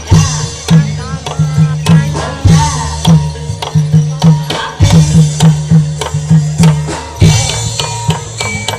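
Loud traditional Javanese percussion music: a deep hand drum beats about two strokes a second under ringing pitched percussion and a wavering melodic line.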